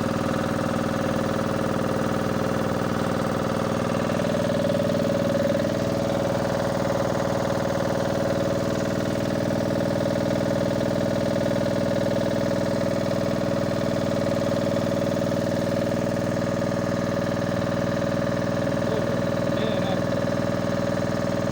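An engine running steadily at a constant speed, with an even hum.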